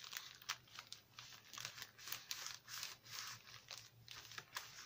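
Paper rustling and crinkling as hands align and fold a decorated paper packet, a run of short swishes with small scrapes and clicks.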